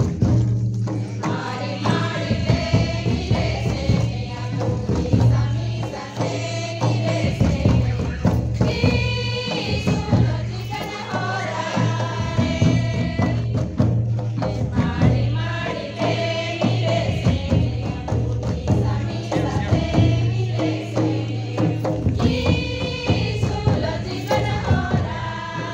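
A group of voices singing a song together over steady percussion strokes.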